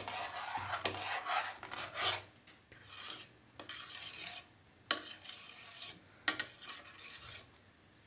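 Wire whisk scraping and swishing around a stainless steel pot of thickened milk and rice in uneven strokes, with a few sharp clicks of the whisk against the pot. The sugar just added is being stirred into the kheer.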